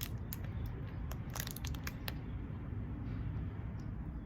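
Sharp crackling clicks from a snack being handled, crunched or unwrapped, for about two seconds, then only a low steady hum.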